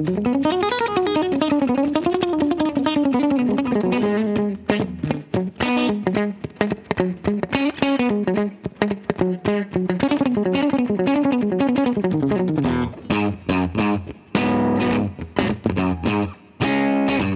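Ibanez electric guitar played through a Line 6 POD X3 Live on a clean amp tone with a compressor and a little reverb. A flowing melodic line with slides comes first, then choppy funk-style chord stabs, short and muted.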